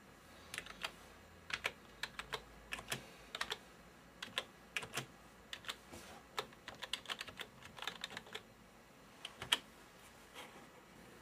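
Typing on a computer keyboard: a quick, irregular run of key clicks as a short phrase is typed out, with a couple of brief pauses.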